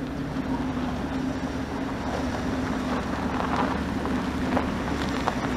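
A 1997 Ford F-250 Super Duty's 5.8-litre V8 gas engine running steadily as the pickup drives slowly across a dirt yard, with a constant hum and wind on the microphone.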